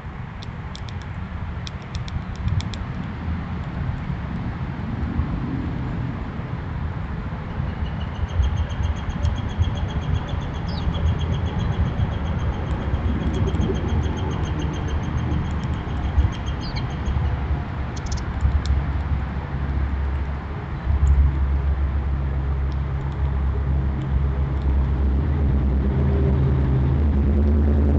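Low engine rumble, like a vehicle running, that grows louder and steadier toward the end. For several seconds in the middle a bird gives a rapid, evenly pulsed trill over it.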